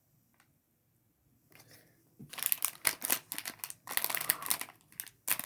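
Plastic sticker packaging crinkling and rustling as it is handled, starting about two seconds in as a quick run of crackles.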